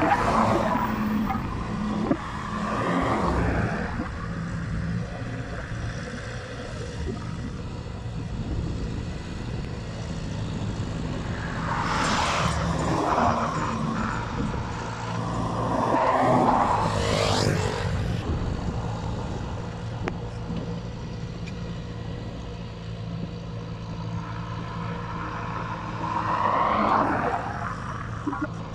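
Massey Ferguson 185 tractor's four-cylinder diesel engine running steadily in a flooded paddy, a low hum throughout, while road vehicles pass close by four times, each swelling up and fading away.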